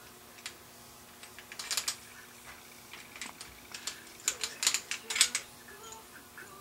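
Light metal clicks and scraping of a Smith & Wesson PC1911 slide, barrel and tight-fitting Briley barrel bushing being worked by hand. Scattered clicks, with a short run near two seconds in and a longer, louder run around four to five seconds in.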